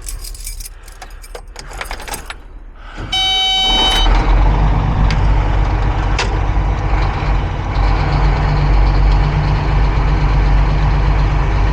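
Cat 349 hydraulic excavator's diesel engine starting: a brief tone about three seconds in, then the engine catches and runs on steadily.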